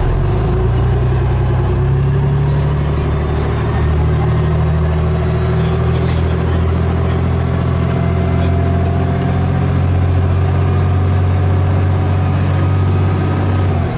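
Cummins L10 diesel engine of a Leyland Olympian bus, driving through a Voith DIWA automatic gearbox, running steadily under way, heard inside the passenger saloon. A fainter whine climbs slowly in pitch over the first half, and the engine note falls away right at the end.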